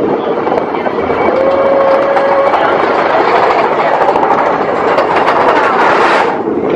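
Expedition Everest roller coaster train running along its track, a loud continuous rattle and rumble with many small clicks; the noise dips briefly near the end.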